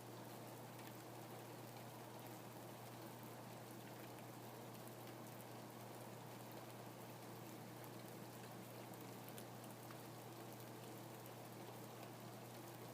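Steady, faint rain, with many small drops ticking on a surface.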